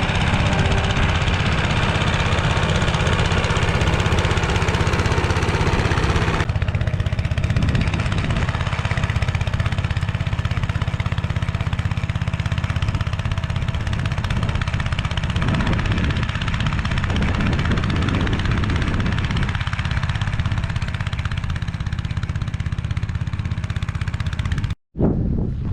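Motor Sich walk-behind tractor engine running steadily while driving its rotary tiller through the soil. Its sound changes about six seconds in and cuts out briefly near the end.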